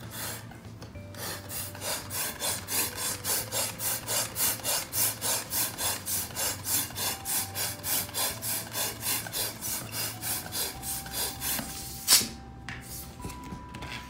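A fast, even run of rasping, rubbing strokes, about three a second, for roughly ten seconds. Then a single sharp bang of a balloon popping, the loudest sound here. Faint music plays underneath.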